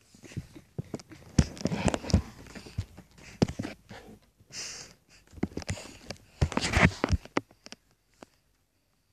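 Irregular rustling, bumps and knocks of a phone being handled close to its microphone, with louder clusters about a second and a half in and again near the end.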